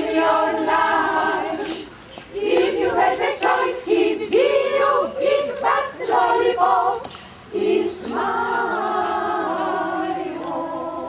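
Senior choir singing a cappella in several voices, in phrases broken by short breaths, then holding one long chord from about eight seconds in.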